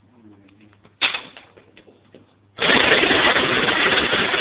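A sharp knock about a second in, then a loud, rapid mechanical rattling that starts about two and a half seconds in and keeps going, from work on a lawnmower engine and deck.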